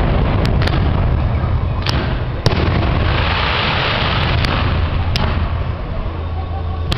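Fireworks display: a series of sharp bangs from bursting shells, about six in all, the loudest about two and a half seconds in, with a stretch of hiss in the middle and a steady low rumble underneath.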